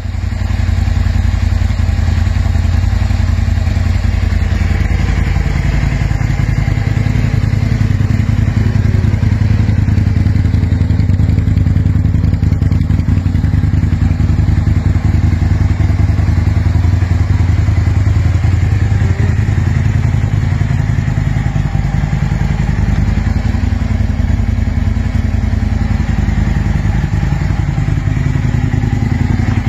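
A 2005 Aprilia RSV 1000 R Factory's 998 cc 60-degree V-twin idling steadily through an Akrapovič SP Series exhaust.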